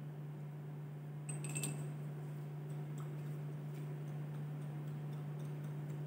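Steady low hum, with a faint glassy clink about one and a half seconds in from a glass dropper and test tube being handled, then a few softer ticks.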